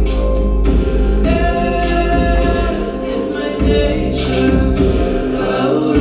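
Live pop music: a singer holding long sung notes over a continuous deep bass, with occasional bright cymbal-like washes.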